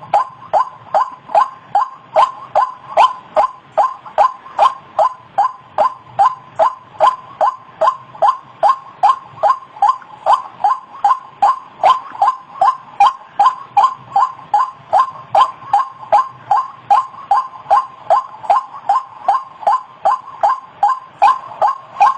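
White-breasted waterhen (ruak-ruak) calling: a loud, very regular series of short calls, about two and a half a second, each sliding slightly down in pitch.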